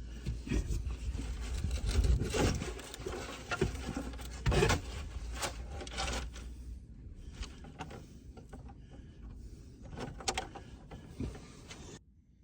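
Irregular rubbing and scraping with short knocks, from someone moving and working in a cramped crawl space under a house; busiest in the first half, thinning out near the end.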